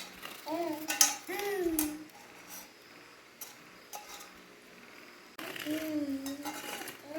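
Short high-pitched voices, with a few light clinks of eating utensils against dishes in between.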